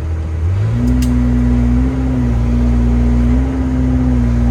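Excavator's diesel engine picking up speed about half a second in and running at a higher, slightly wavering pitch under hydraulic load as the bucket digs into dirt.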